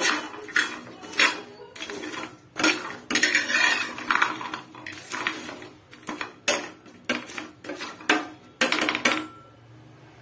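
Metal spatula scraping and knocking against a frying pan as whole jackfruit seeds are stirred while roasting, the hard seeds rattling in the pan. Sharp strokes come one or two a second and stop shortly before the end.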